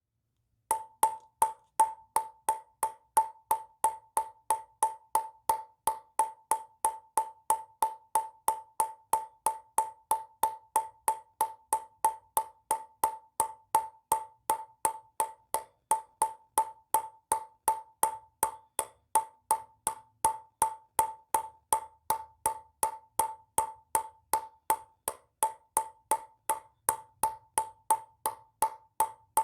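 Ping-pong ball bouncing in a steady, even rhythm of about three bounces a second, starting a little under a second in. Each bounce is a short click with a ringing tone.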